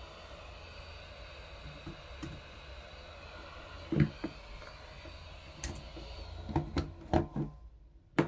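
Hot-air rework station blowing with a steady hiss and a faint high whine while desoldering a keyboard's micro-USB port, cut off about seven seconds in. Small tool knocks and clicks on the board come about four seconds in and in a quick cluster near the end.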